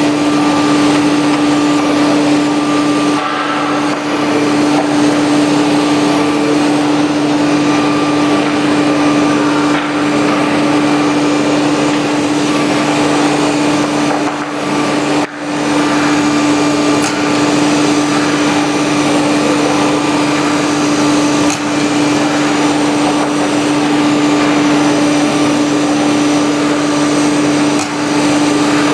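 CNC nesting router running while it machines MDF: a steady spindle hum over a constant rushing noise, broken by a brief dip about three seconds in and a short drop about halfway through.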